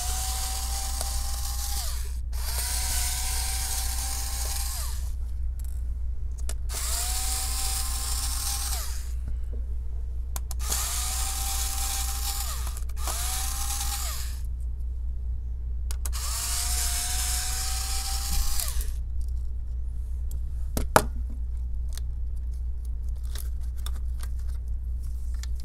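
Electric precision screwdriver backing out laptop motherboard screws: six short runs of a steady motor whine, each lasting about two seconds and dropping in pitch as the motor winds down. Then light clicks from handling the board, with one sharper click.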